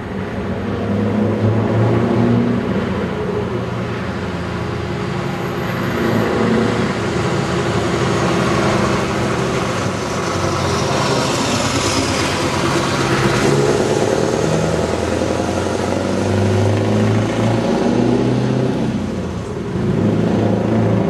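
Scania V8 truck engine driving past under power: it grows louder as it approaches, peaks with tyre and engine noise as it passes close about halfway through, then pulls away, its deep engine note stepping in pitch several times.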